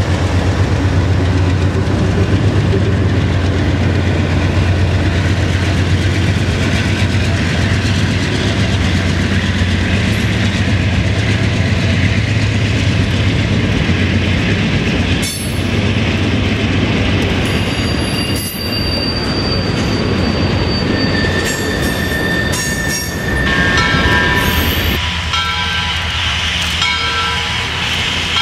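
Freight train passing close by: the steady low rumble of the diesel locomotives gives way to the rolling clatter of freight cars, and about halfway through, high-pitched wheel squeals join in and continue.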